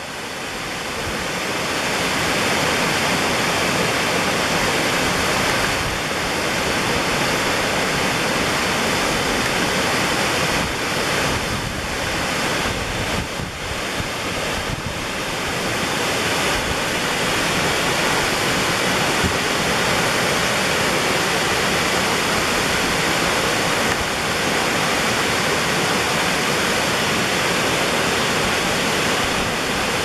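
Waterfall crashing onto rocks and into a plunge pool: a steady, dense rush of falling water that grows louder over the first couple of seconds, then holds.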